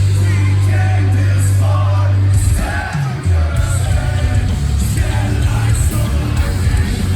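Metalcore band playing live: heavy, low distorted guitars and bass with drums and cymbal crashes, under singing and yelled vocals. The held low chord changes about two and a half seconds in.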